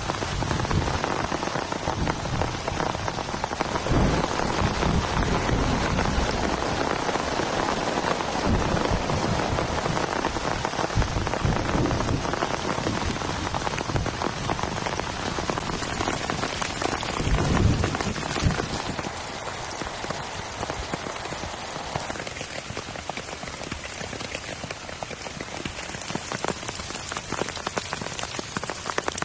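Heavy rain falling steadily, with a few low thumps in the first two-thirds; the rain is a little quieter in the last third.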